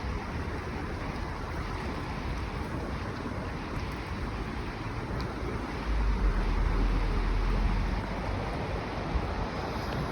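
Creek water running in a steady rush, with wind buffeting the microphone, most strongly for a couple of seconds past the middle.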